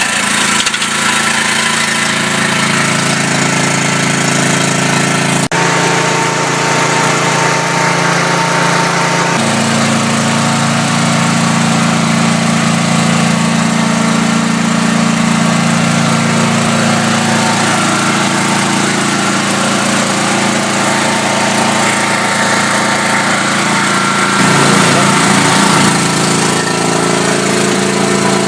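RIDGID 8000 portable generator, converted to tri-fuel and running on propane, running steadily just after being started with its key. Its engine note steps up about ten seconds in and wavers briefly a few seconds before the end.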